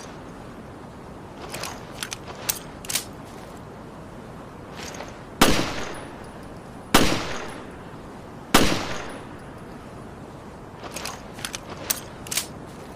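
Colt Government pistol fired three times, about a second and a half apart, each shot with a reverberant tail. Before and after the shots come several short metallic clicks from handling the pistol.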